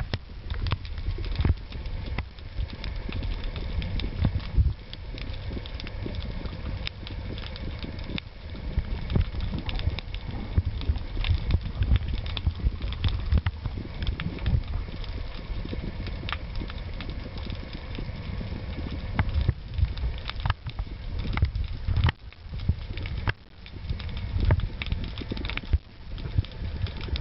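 Constant irregular clicking of parrotfish biting and scraping at coral, heard underwater over a low rumble of moving water.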